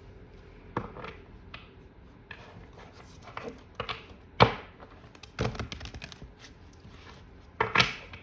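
A tarot deck being handled on a table: a run of irregular knocks and taps, the loudest about halfway through and a quick cluster near the end.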